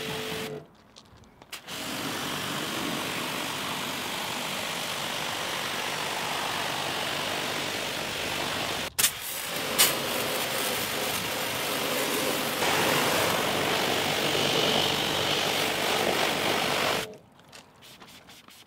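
Pressure washer running, its jet spraying water over a car's rear bumper and exhaust tips and then into a wheel arch. The spray breaks off for about a second near the start and stops about 17 seconds in.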